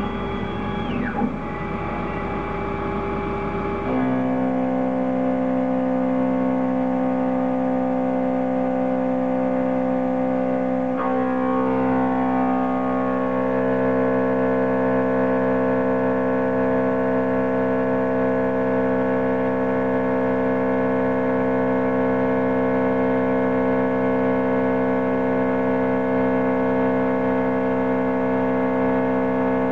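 Denford VMC1300 CNC milling machine cutting aluminium: the spindle runs and the stepper-driven axes feed an end mill along the block. It makes a steady whine of several tones that changes about four seconds in and shifts again around eleven seconds.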